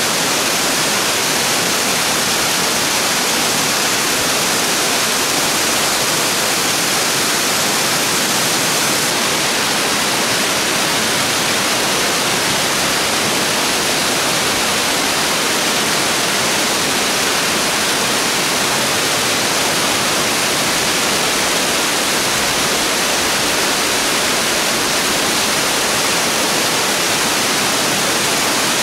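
Waterfall cascading down a steep rock face: a steady, loud rush of falling water.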